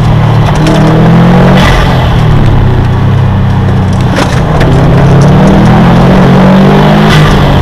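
A 2015 Subaru WRX STI's turbocharged flat-four engine running hard at track speed, heard from inside the cabin through an overloaded dash-camera microphone that crackles. The engine note sags a little, then rises about halfway through as the car accelerates and holds there.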